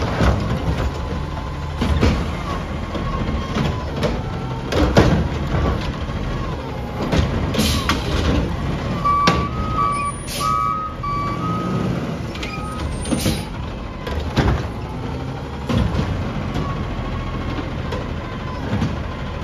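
Automated side-loader garbage truck running, its hydraulic arm whining up and down as it grips and lifts a wheeled recycling cart, with several clanks and bangs from the arm and cart. A short run of beeps at two alternating pitches comes about halfway through.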